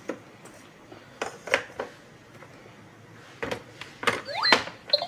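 A handful of light clicks and knocks of plastic toy pieces being handled and set down, with a short rising electronic tone from the toy starting near the end.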